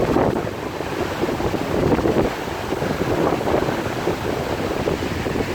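Wind blowing on the microphone: a loud, unbroken rushing noise that swells and dips.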